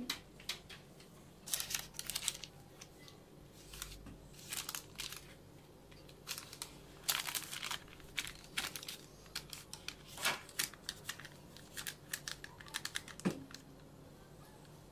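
Baking paper lining a tray crinkling in short, scattered rustles and light clicks as cookie dough is placed and pressed onto it, with one sharper knock near the end.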